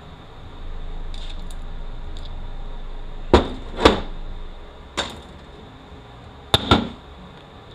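Metal automatic-transmission parts (drum, hub) knocking and clinking as they are handled: about five sharp, short clanks from about three seconds in, the last two close together.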